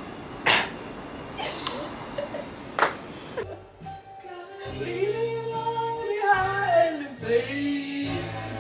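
A few sharp, loud bursts of noise, then music from about three and a half seconds in: a melody gliding over a steady backing.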